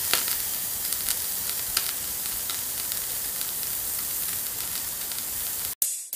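Old-film or vinyl crackle sound effect: a steady hiss with scattered small pops and clicks. It cuts off near the end and is followed by a few quick clicks.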